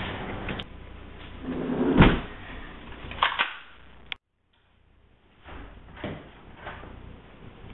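A door being handled: a heavy thud about two seconds in, then sharp clicks like a latch, and a few lighter knocks. The sound cuts out completely for a moment just past halfway.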